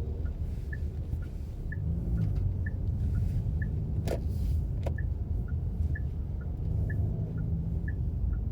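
Steady road and engine rumble inside a moving car's cabin, with the turn-signal indicator ticking in an even tick-tock about twice a second. Two sharp clicks stand out about four and five seconds in.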